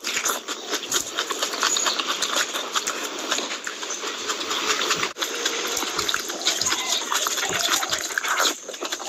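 Wet chewing and lip-smacking close to the microphone as mouthfuls of rice and curry are eaten by hand, a dense run of squelches and clicks.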